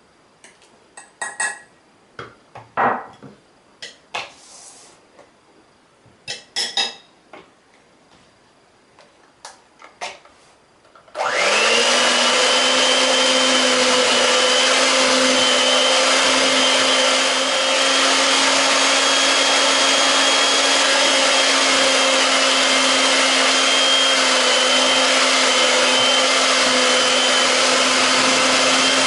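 A spoon scrapes and knocks against a plate and a plastic bowl, in short separate strokes. About eleven seconds in, an electric hand mixer switches on and runs steadily at a constant pitch with a hum and a higher whine, its beaters working through a cake batter in a plastic bowl.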